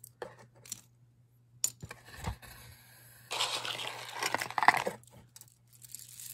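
Costume jewelry being rummaged through by hand: scattered clicks of metal pieces and beads knocking together, then a denser stretch of rustling and clattering between about three and five seconds in.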